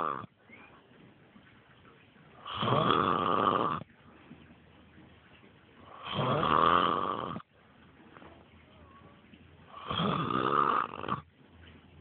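A sleeping man snoring loudly: three long snores, each lasting more than a second, coming about every three and a half to four seconds, with quiet between them.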